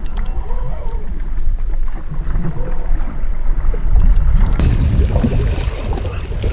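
Wind buffeting the microphone, a heavy uneven low rumble; about four and a half seconds in the sound opens up and rustling handling noise joins it.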